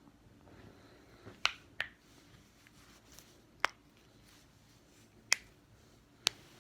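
Neck joints cracking: five sharp, separate pops, the first two close together and the rest a second or two apart.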